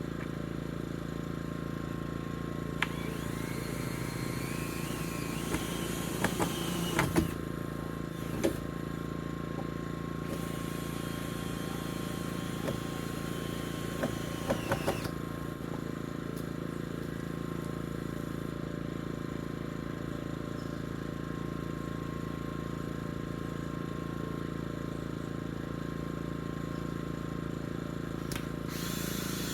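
A steady mechanical hum throughout, over which a power drill spins up twice, about 3 seconds in and again about 10 seconds in, each run a few seconds long, rising in pitch and then winding down, with a few sharp knocks around each run.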